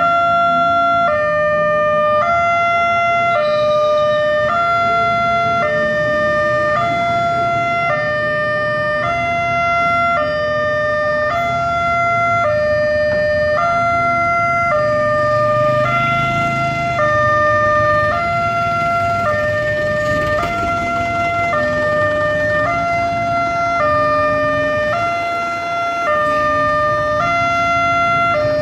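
Railway level-crossing warning alarm sounding a steady electronic two-tone hi-lo tone that switches pitch about once a second, the warning that a train is approaching and the crossing is closed. Road traffic rumbles underneath.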